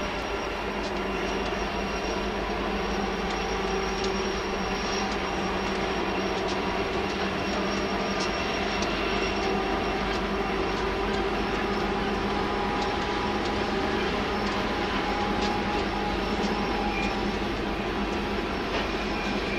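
Union Pacific freight train with diesel locomotives and rolling cars, passing with a steady drone. Faint high squeals and scattered clicks sound over it.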